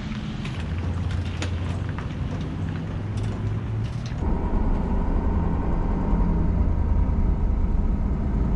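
A heavy-duty pickup towing a fifth-wheel RV trailer pulls away across a parking lot, with engine and tyres running. About four seconds in the sound changes abruptly to the steady engine and road drone heard inside the moving truck's cab.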